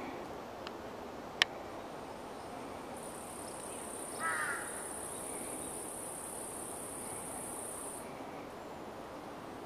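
A high, steady insect buzz starts about three seconds in and cuts off sharply about five seconds later, over steady outdoor background noise. A single sharp click comes about a second and a half in, and a brief chirp around four seconds.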